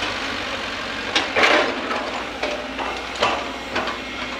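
Loaded light dump truck's diesel engine running as the truck drives away along a dirt track, a steady low hum broken by several short, louder clattering bursts, the loudest about a second and a half in.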